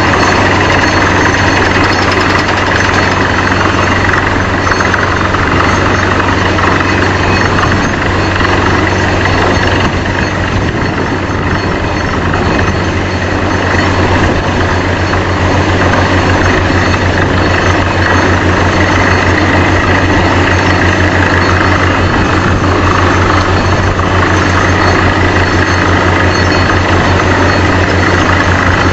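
Vesta VA650X2 diesel-driven portable screw compressor and truck-mounted drilling rig running loud and steady while drilling with 400 psi air: a constant low diesel drone under a dense mechanical and air noise. From about halfway, a fine rapid pulsing shows in the low drone.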